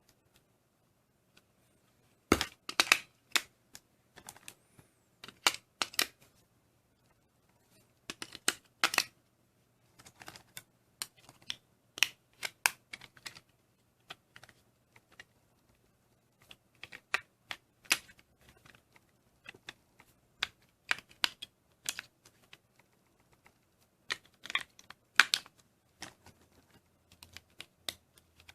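Irregular clusters of sharp plastic clicks and rattles from Lepin Power Functions parts being handled and switched. A faint, steady low hum starts with a loud click about two seconds in and drops a little lower near the end.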